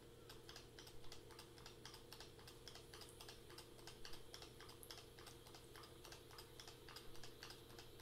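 Near silence with faint, quick, irregular clicks over a low steady hum: espresso dripping from a Nomad hand-lever espresso machine into a plastic scoop.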